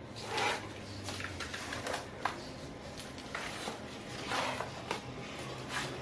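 Cardboard mat box being opened by hand: irregular rustling and scraping as the lid flap slides and lifts, with a sharp click a little after two seconds in.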